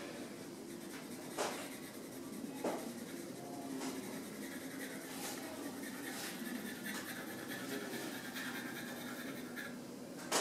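Pencils scratching on paper during drawing, with a few short sharp knocks scattered through.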